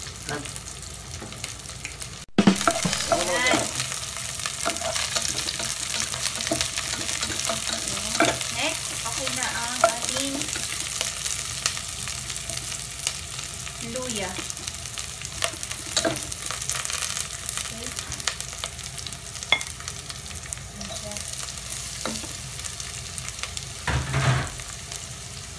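Garlic and sliced onion sizzling in hot oil in a pot, stirred with a spatula that scrapes and taps the pan. About two seconds in the sound drops out briefly and comes back louder; near the end there is a louder knock.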